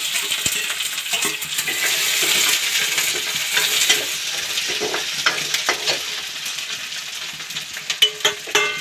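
Sliced onions sizzling in hot oil with cumin in a metal kadhai, stirred with a steel ladle that scrapes and clicks against the pan. The sizzle is strongest just after the onions go in, and a few sharper ladle knocks come near the end.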